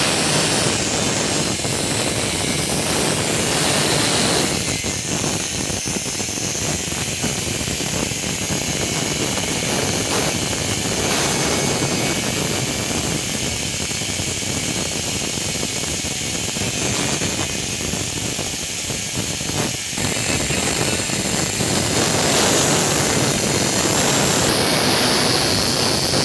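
Angle grinder with a cutting disc running and cutting through the metal of a tractor mudguard: a loud, continuous grinding whine that shifts slightly as the disc bites.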